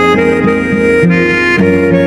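Background music: held reedy chords that change every half second or so over a plucked bass line.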